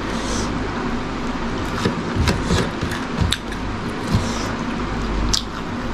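Close-miked chewing, with scattered wet mouth clicks and lip smacks, over a steady background hum.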